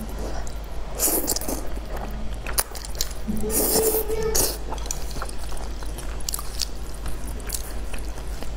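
Close-up mouth sounds of eating wide wheat noodle sheets (mianpi): two louder slurps, about a second in and again around the middle, with wet chewing and small clicks in between.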